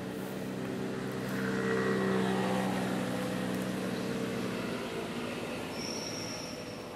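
Engine of a water-taxi speedboat passing close by at speed. It grows to its loudest about two seconds in, drops slightly in pitch as it goes past, and fades out about five seconds in.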